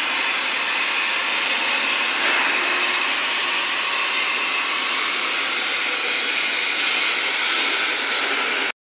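Oxy-acetylene cutting torch on a CNC cutting table hissing steadily as it burns through steel plate. The sound cuts off abruptly near the end.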